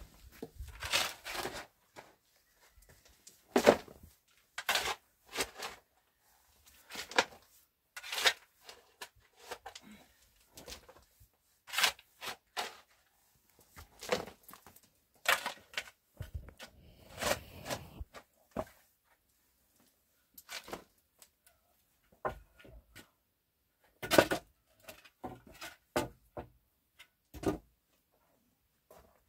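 A long-handled shovel scraping into a heap of soil and stones and tipping each load into a metal wheelbarrow, a scrape and rattle every second or two. There is a pause of a few seconds past the middle.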